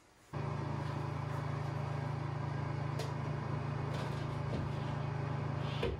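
Steady low machine hum that starts abruptly about a third of a second in and holds even, with a faint click about halfway through and another near the end.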